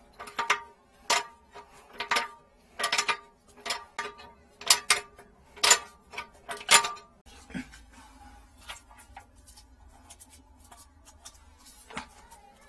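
A run of sharp metallic clinks and knocks, each ringing briefly, from a pipe wrench striking the valve and pipe fittings down inside the drinking fountain's hollow housing. After about seven seconds they stop, leaving a faint low rumble and one more click near the end.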